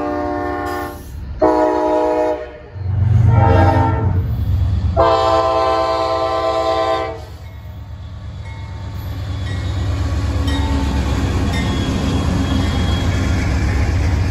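Diesel freight locomotive air horn sounding a series of blasts, the last and longest about two seconds, over the low rumble of the locomotives' engines. After the horn stops, the engine rumble grows steadily louder as the train comes closer.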